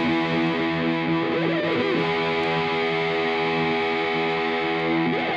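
Background music: a distorted electric guitar holding a sustained chord.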